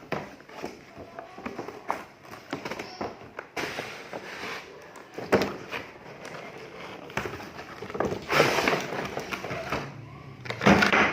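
Plastic toy pieces and packaging being handled: irregular clicks and knocks with bursts of rustling, loudest about eight seconds in and near the end.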